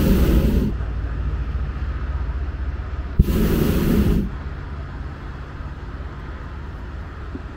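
Hot air balloon's propane burner firing in short blasts of loud hiss, each about a second long: one cuts off just after the start, and another opens with a click about three seconds in. A steady low rumble runs underneath.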